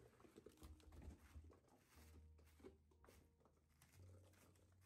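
Near silence: faint rustles and light clicks of foam packing blocks and plastic stretch-wrap as an amplifier head is lifted out of its cardboard box, over a low hum that comes and goes.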